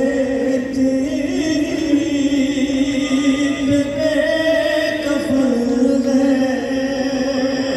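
Noha, a Shia mourning chant: a man's voice through a microphone holding long drawn-out notes that shift slowly in pitch.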